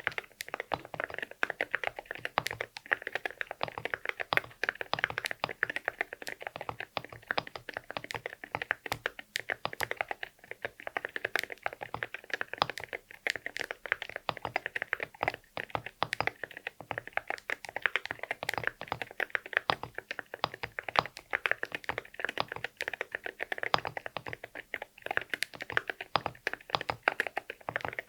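Steady typing on a wooden-cased Akko MU01 mechanical keyboard with Akko Rosewood linear switches and ceramic keycaps: quick, irregular key strokes with a sharp clack on each press.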